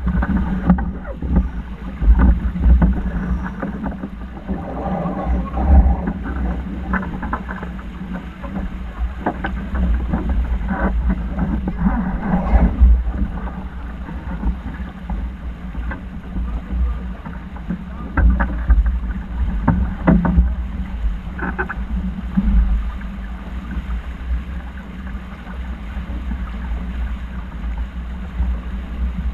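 Wind rumbling and buffeting on the microphone aboard a boat at sea, over a steady low drone and water noise, with occasional short knocks.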